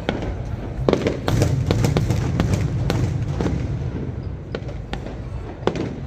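Aerial fireworks display: a rapid string of bangs and crackles over a low rumble, densest in the first half and thinning out toward the end.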